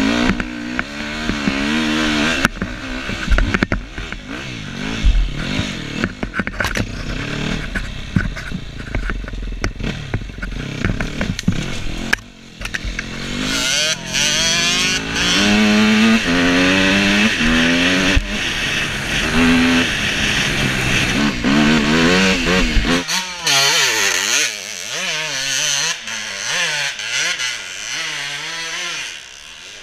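Dirt bike engine revving up and down as it is ridden hard on off-road ground, with wind noise on the helmet microphone. About two-thirds of the way through it cuts to a more distant, thinner engine sound from a bike climbing a steep wooded slope.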